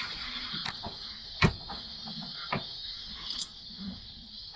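Steady high-pitched drone of insects, with a few light clicks or taps; the sharpest comes about a second and a half in.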